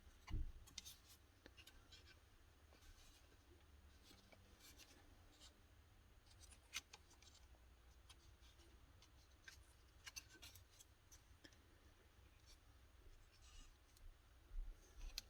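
Near silence: faint, scattered clicks and light scraping of small parts being handled inside an open S-VHS deck's tape transport, with a soft thump about half a second in.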